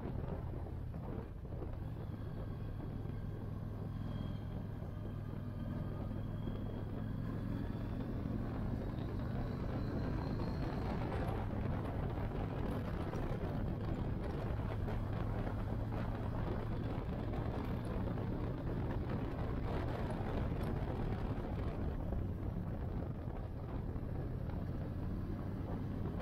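Motorcycle engine running steadily while riding at an even speed. Its low hum holds constant, with a rushing noise over it.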